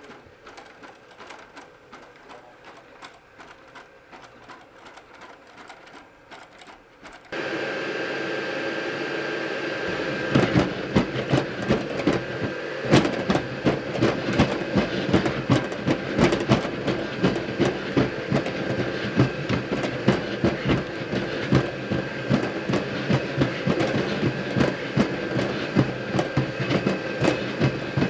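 Quiet for the first several seconds. Then a Boston Dynamics Spot robot's motors start a steady mechanical whir, and from about ten seconds in rapid, irregular clacking joins it, several clicks a second, as the robot moves while carrying a cooler in its gripper arm.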